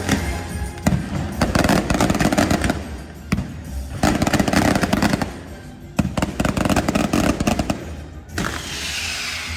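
Fireworks crackling in three spells of dense, rapid pops with a few sharp bangs, over music; near the end a hissing rush takes over.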